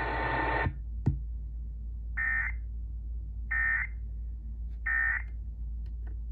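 Emergency Alert System end-of-message signal: three short, buzzy digital data bursts about 1.3 seconds apart, marking the end of the flash flood warning broadcast. Before the bursts, a steady hiss cuts off just under a second in and is followed by a single click, over a low hum.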